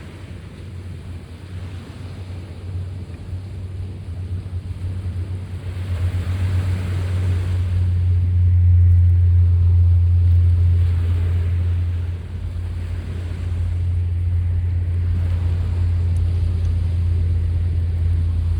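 Sea waves washing in and out in slow swells, under a loud low rumble that builds over the first half and then holds steady.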